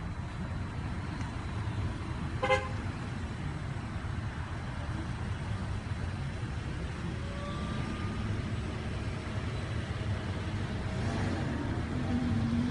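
Steady rumble of road traffic from passing cars, with one short car-horn toot about two and a half seconds in.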